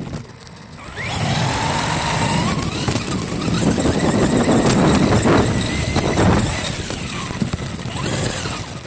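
Onboard sound of a Traxxas Slash Fox 4WD 1/10-scale RC short course truck driving fast over grass: a rush of wind and grass noise with the electric motor and drivetrain whining, the whine rising in pitch about a second in. It eases off near the end.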